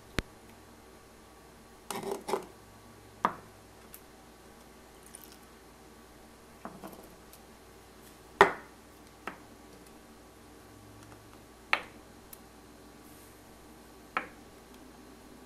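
Small glass prep bowls clinking and knocking against a blender cup and being set down on a wooden counter as spices are tipped in. There are about a dozen separate sharp clinks, the loudest about eight seconds in.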